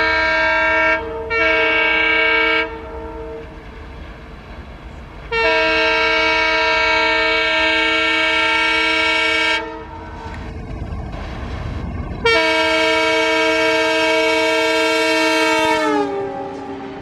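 WDM3D diesel locomotive's multi-tone horn sounding: a short double blast, then two long blasts, the last dropping in pitch near its end. The train's low rumble fills the gaps between blasts.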